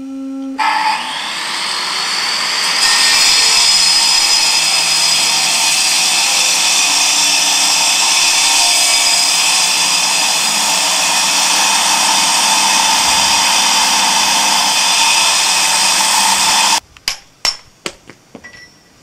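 Electric angle grinder cutting into a block of stone: it starts about half a second in and grinds steadily. Near the end it cuts off abruptly, and a quick run of sharp hammer-on-chisel strikes on the stone follows.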